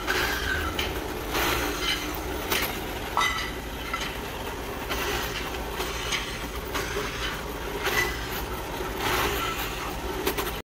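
Pillar drill press running and its bit drilling into a small metal part, with a steady motor hum and irregular clicks and scrapes of metal cutting.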